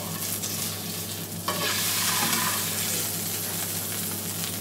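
Oil and butter sizzling in a hot frying pan, a steady hiss that grows louder about a second and a half in, over a steady low hum.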